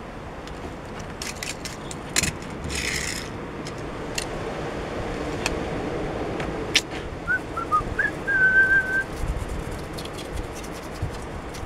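Small brush sweeping fake snow off a wooden toy track, with scattered light clicks and scrapes. Near the middle, a short whistle sounds: three quick falling notes, then one held note for about a second.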